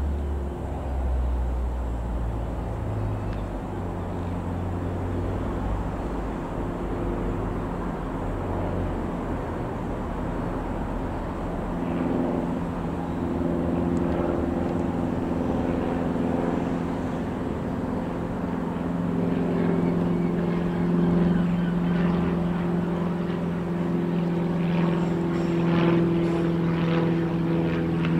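Piper PA-28-161 Warrior II light aircraft's four-cylinder Lycoming piston engine and propeller running steadily as it flies overhead, getting louder from about halfway through as it comes closer.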